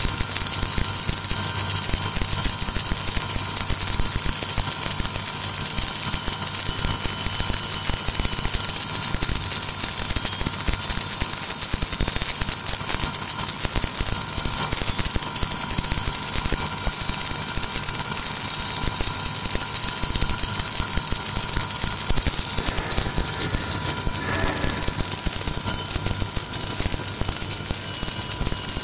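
Submerged arc welding equipment running steadily during a fill pass on a circular joint. It makes a continuous high hiss over a constant electrical hum and tone.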